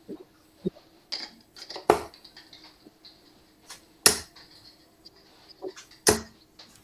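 Three darts striking a Winmau dartboard, one sharp thud about every two seconds, with a few faint clicks between.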